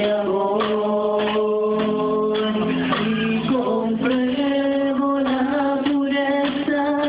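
A congregation singing a Spanish-language worship song, with men's and women's voices holding long notes that move in steps.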